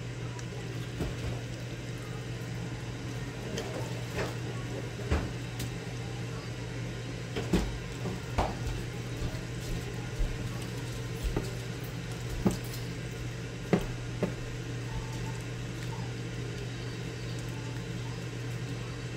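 A silicone spatula stirring a thick ground-beef and green-bean mixture in a skillet, with scattered taps and scrapes against the pan, over a steady low hum.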